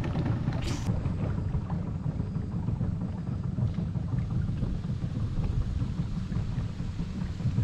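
Steady low rumble of a boat under way on the river, wind buffeting the microphone over the running motor, with one short sharp noise a moment in.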